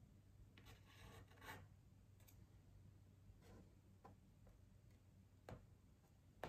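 Near silence, with faint light clicks and short rubbing scrapes as pieces of tumbled glass are handled and set onto a glass pane. A few scrapes come about a second in and single clicks follow, the sharpest near the end.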